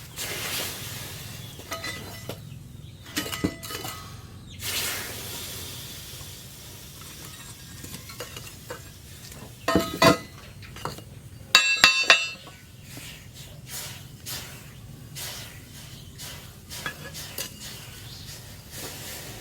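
Steel pieces and tools clinking and clanking at irregular intervals, some strikes ringing briefly; the loudest are a cluster of sharp ringing clanks about twelve seconds in.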